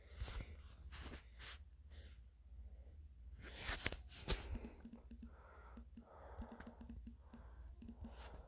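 Faint scattered taps and clicks over a low hum, the loudest two close together near the middle: fingers tapping and typing on a phone's touchscreen.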